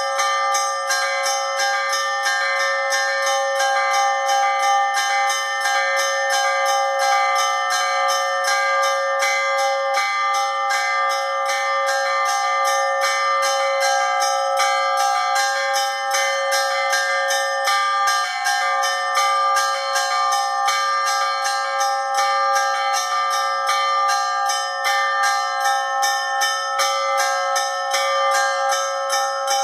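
Russian Orthodox church bells ringing a zvon: small bells struck in a rapid, even pattern of about four strikes a second over the steady, overlapping tones of several bells.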